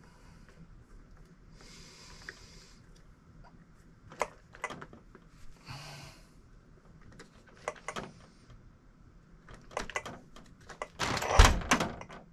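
Hands working on a 1/5-scale RC buggy's suspension adjusters and handling the car: scattered clicks and knocks with a couple of brief rustles, then a quick cluster of knocks and one heavy thump near the end.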